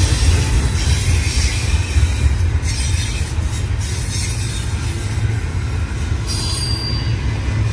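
CSX freight train rolling past on the rails: a steady low rumble of cars going by, with a thin high wheel squeal clearest near the end.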